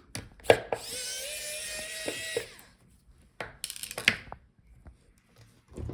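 Electric precision screwdriver whirring steadily for about a second and a half, backing out a laptop speaker screw, with small clicks and rattles of the tool and screw before and after.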